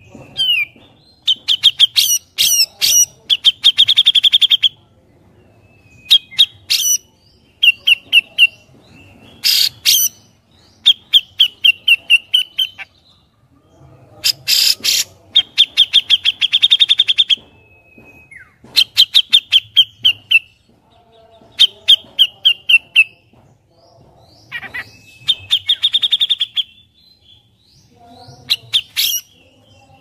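Grey-cheeked bulbul (cucak jenggot) singing: phrases of rapid, high chattering trills, each one to three seconds long, repeated about ten times with short pauses between.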